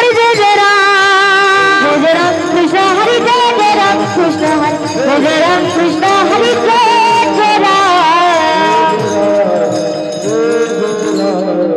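Devotional kirtan music: a singer's wordless, ornamented melodic line with wavering held notes over a steady drone, with quick metallic ticks of taal hand cymbals.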